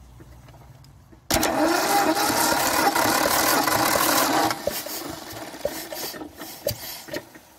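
Simms electric starter motor cranking a Gardner diesel engine: it cuts in suddenly about a second in, spins loudly with a whine for about three seconds, then stops. Quieter irregular knocks follow as the engine comes to rest.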